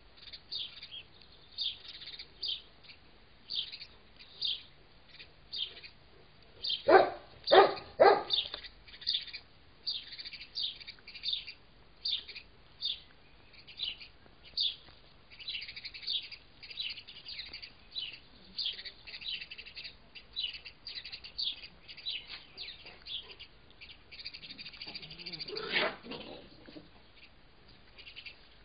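Small birds chirping over and over, with three loud dog barks in quick succession about seven seconds in and another longer call near the end.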